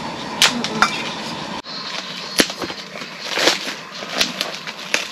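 Scattered sharp clicks and knocks with some rustling, from things being handled. A low background hum drops out suddenly about one and a half seconds in.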